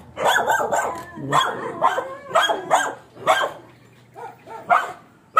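A dog barking repeatedly, in fast runs of barks for the first few seconds, then single barks spaced further apart.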